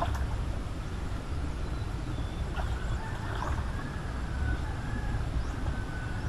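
Steady low rumble with faint, scattered bird chirps and whistles over it.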